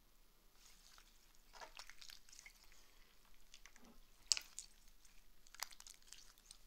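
Slime being squeezed and pulled apart by hand, giving faint sticky squishes and small wet pops, with a sharper click about four seconds in and another about a second later.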